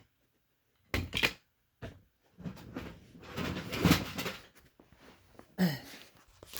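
Handling noise: knocks and clunks with rustling as smoke alarms are picked up, moved and set down, loudest about a second in and again around four seconds.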